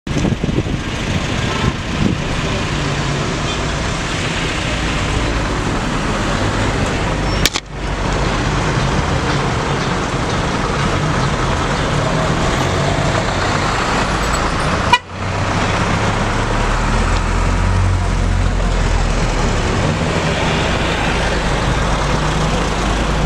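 Busy road traffic, engines running with car horns tooting, heard from inside a moving vehicle. The sound drops out briefly twice, about a third and two thirds of the way through.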